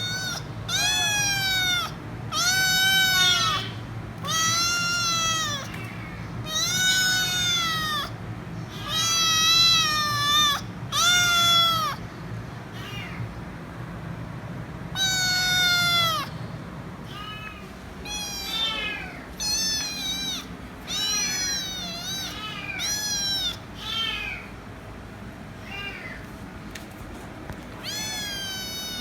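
Kitten meowing loudly over and over, each call about a second long, rising and then falling in pitch, one every second or two. Later the meows become shorter and softer, with an occasional loud one still breaking through.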